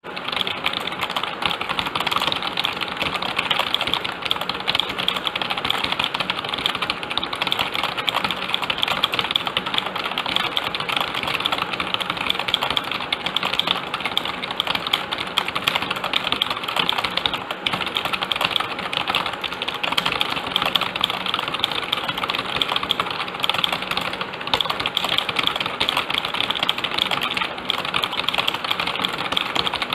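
Someone typing fast and without pause on a computer keyboard: a dense, steady run of key clicks.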